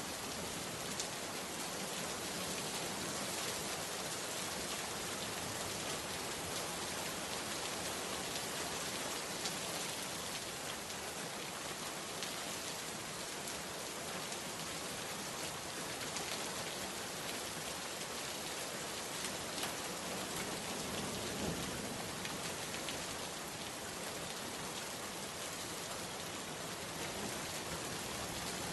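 Steady rain falling on a surface, an even dense hiss with scattered small drop ticks.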